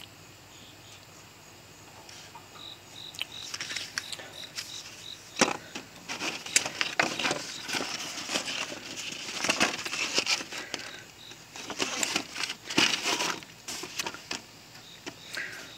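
A thin PTFE grill mat being handled and laid flat on grill grates: irregular crinkling and flapping rustles of the sheet, coming in clusters.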